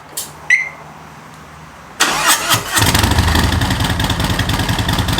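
Harley-Davidson V-twin engine breathing through a Rinehart exhaust fitted with FuelMoto tunable inserts: two short clicks, then the starter cranks about two seconds in, the engine catches under a second later and settles into a steady idle. This is the first start after the inserts went in, and the exhaust note is quite a bit quieter with them.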